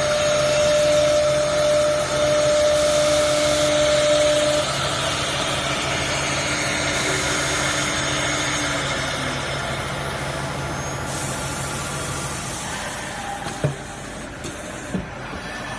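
Spindle motor of a three-spindle CNC router running at speed while its bit routes grooves in a particle-board sheet: a steady whine over the rush of the cut. The sound eases off in the last few seconds, with two short sharp clicks near the end.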